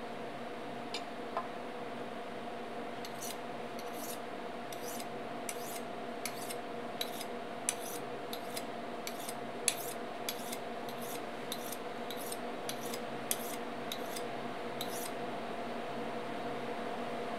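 Kitchen knife being honed on a honing steel: a rhythmic run of quick metal-on-metal scraping strokes, about two a second, that starts about three seconds in and stops about two seconds before the end, over a steady low hum.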